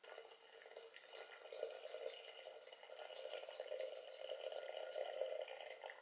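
Hot water poured from an electric kettle into a ceramic teapot: a steady stream splashing as the pot fills, thinning to a trickle near the end.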